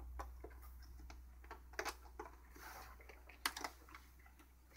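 Quiet, irregular plastic clicks and taps as stiff plastic embossing base plates are handled and pressed into line, with one sharper click about three and a half seconds in.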